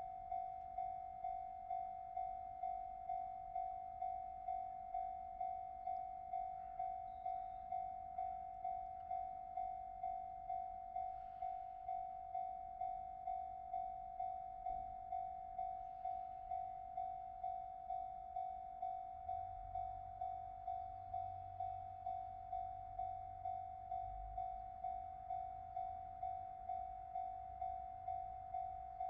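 Japanese level crossing warning bell ringing: an electronic 'kan-kan' tone struck evenly about twice a second, which means the crossing is closing for an approaching train. A low rumble comes in about twenty seconds in.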